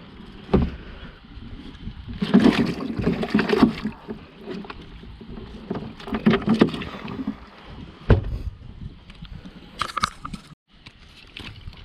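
Handling noises aboard a small fishing boat: a sharp knock under a second in and another about eight seconds in, with two longer noisy stretches about two and six seconds in.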